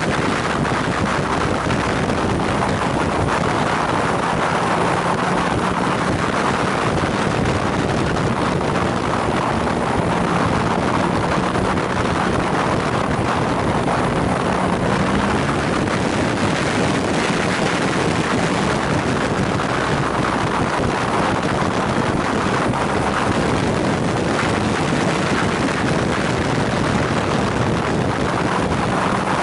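Steady wind rush over the microphone of a BMW R nineT ridden at speed, with the motorcycle's boxer-twin engine running underneath, its note shifting slightly through the bends.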